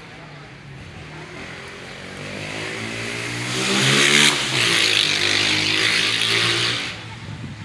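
A motor vehicle's engine passing close by: it grows louder over the first few seconds, is loudest from about four seconds in, and falls away near the end.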